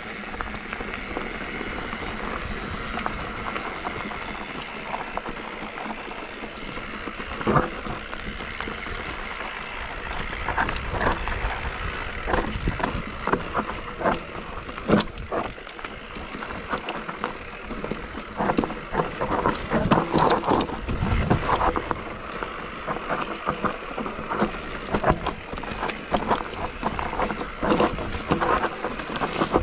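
An enduro bike ridden over a rough trail: a steady rush of noise broken by frequent sharp knocks and rattles, which get busier from about ten seconds in.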